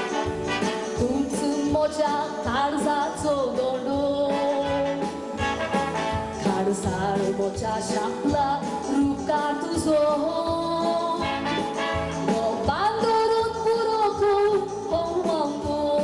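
A woman singing a song into a microphone over instrumental accompaniment with a steady beat.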